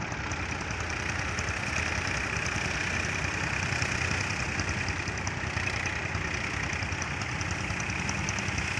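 Eicher 557 tractor's diesel engine running steadily, with a fine regular clatter.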